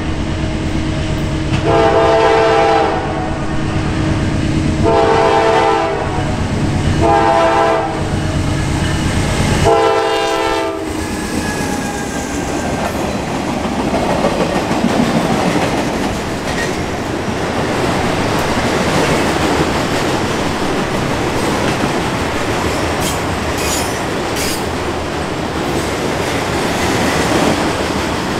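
Air horn of a Norfolk Southern GE Dash 9-44CW diesel locomotive sounding the long, long, short, long grade-crossing signal over the low rumble of its engine. After the last long blast, about eleven seconds in, the work train's cars roll past with steady wheel-on-rail noise.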